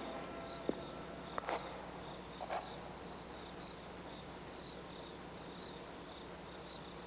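Crickets chirping in a steady, evenly repeating pulse, with a few soft footfalls and knocks in the first three seconds as a man walks up and kneels on a bare floor.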